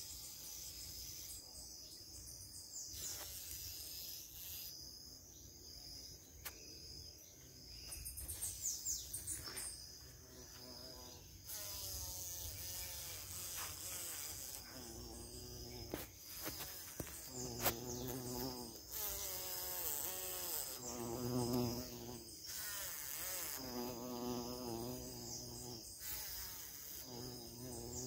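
Honeybees buzzing, with single bees flying close past the microphone several times in the second half, each pass a short drone that swells and fades. A steady high insect chirring runs underneath.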